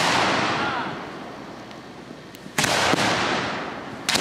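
Aerial firework shells bursting overhead: the slowly fading boom of one bang at the start, a loud bang about two and a half seconds in, and another near the end, each trailing off slowly.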